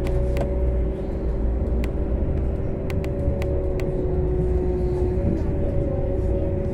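Moving trolleybus heard from inside the cabin: a steady low rumble with a constant two-note whine over it and scattered light clicks and rattles.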